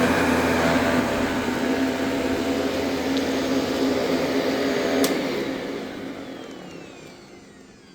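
Panasonic Performance Plus MC-6357 upright vacuum motor running steadily. About five seconds in there is a click, and the motor then winds down with a falling whine.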